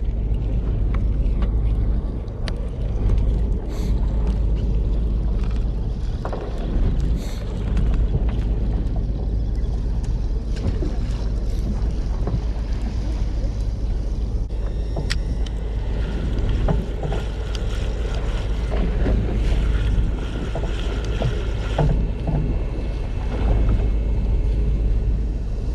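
Steady low rumble of a charter fishing boat at sea, its engine running and wind buffeting the microphone, with scattered small knocks and clicks.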